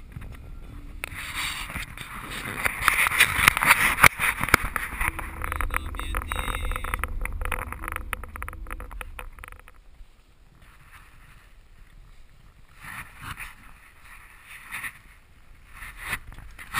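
Van driving on a snow-covered road, heard from inside: a steady low rumble of engine and tyres with hiss and frequent rattles and knocks from the cabin, loudest a few seconds in. About ten seconds in this drops away to much quieter outdoor sound with a few short rustling bursts.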